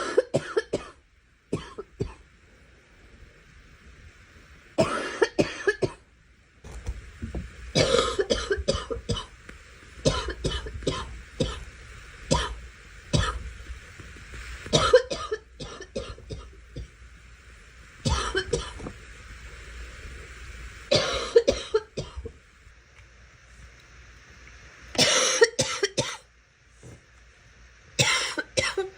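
A young woman coughing repeatedly, in bouts of several quick coughs each, every few seconds.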